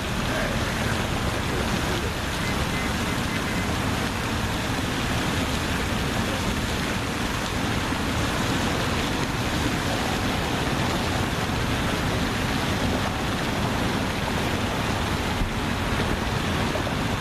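Steady rushing noise of wind and water, even throughout, with no distinct events.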